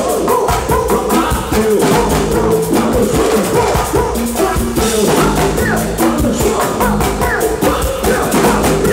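Live pagode baiano band music, driven by a dense, fast-playing percussion section of stage drums over a full band.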